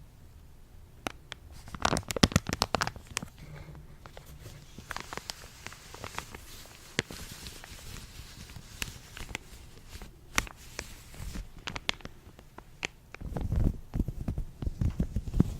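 Latex gloves worn on the hands, rubbed and handled close to the microphone: a run of sharp snaps and crackles about two seconds in, a soft rubbing hiss through the middle, and low muffled thumps near the end.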